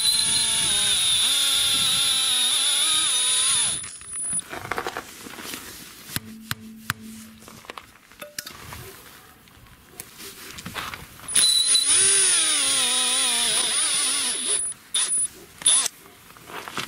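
Electric jigsaw motor, rigged as a tool for setting metal studs into a winter tyre's tread, running in two bursts of about four seconds each, with a steady high whine and a wavering pitch. The first burst stops about four seconds in, and the second starts about eleven seconds in.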